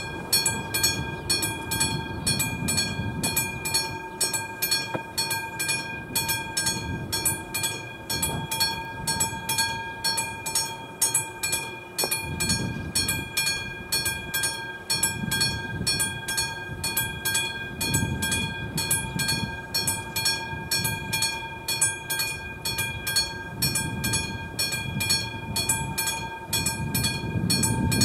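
AŽD 71 level-crossing warning signal's classic electric bell ringing in quick, even strokes, the warning that a train is approaching. Gusts of wind rumble on the microphone now and then.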